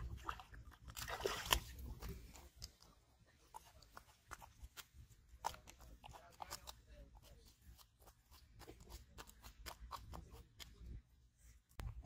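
A hooked fish splashing at the water's surface, loudest about a second and a half in. After that come scattered short slaps and crunching clicks as the landed fish flops on dry, cracked mud.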